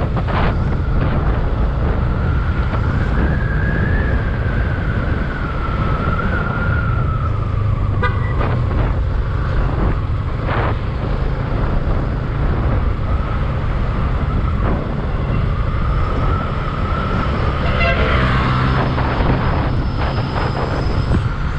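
Motorcycle riding at road speed: steady engine and wind rumble, with a thin whine that drifts slowly up and down in pitch as the speed changes.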